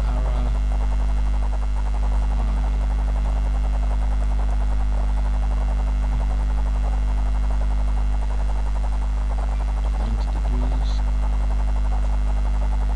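Steady electrical mains hum: a loud low buzz with a stack of steady overtones above it, unchanging throughout.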